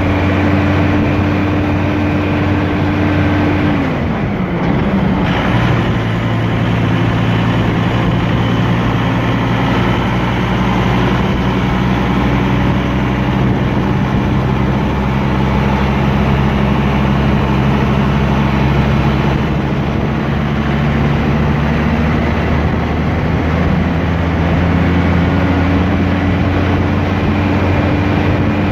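Farm tractor diesel engine running steadily under way; its pitch drops about four seconds in and rises again near the end.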